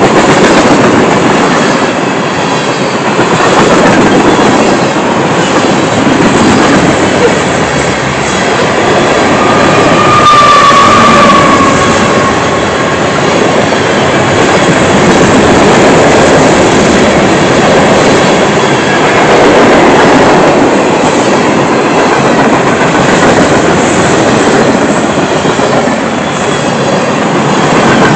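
CSX freight cars rolling past close by: a loud, steady rumble and clatter of steel wheels on rail. A brief high squeal, falling slightly in pitch, rises over it about ten seconds in.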